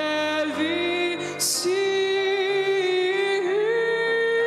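Hymn singing: a voice holds long, slowly gliding notes over a steady musical accompaniment, with a brief hiss of a sung consonant about a second and a half in.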